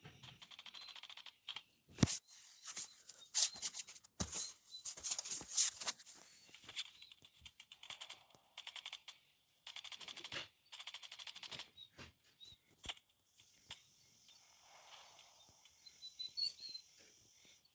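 Bursts of rapid automatic airsoft fire: several strings of fast, evenly spaced clicks, each lasting a second or more, with a few sharper single cracks, the loudest about two seconds in.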